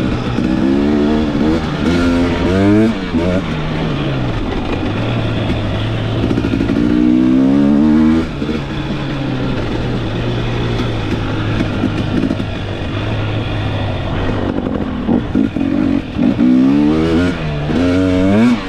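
KTM 250XC two-stroke dirt bike engine with a TSP performance kit, revving up and falling back again and again as the throttle is worked. It settles into a steadier, lower drone for a few seconds at a time in between.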